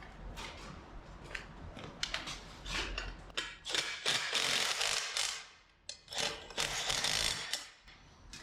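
Ratchet wrench clicking as 3/8 bolts are run in and tightened, in two longer spells in the second half.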